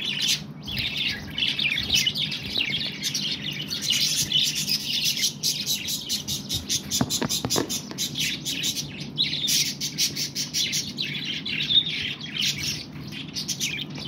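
A flock of budgerigars chattering continuously, a dense stream of rapid high chirps and warbles.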